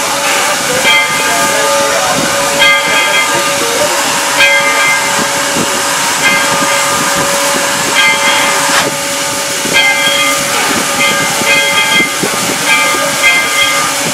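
Steam locomotive No. 25 hissing steam loudly and steadily, with one constant tone underneath. Short shrill notes come and go over it every second or two.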